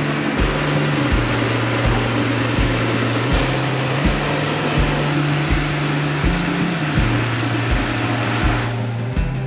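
Background music with a steady, slow kick-drum beat and a bass line, over a constant hiss.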